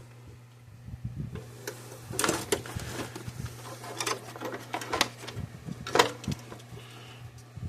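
Irregular metallic clicks, knocks and rattles of stainless steel clamp bands being handled and fitted by hand, over a steady low hum.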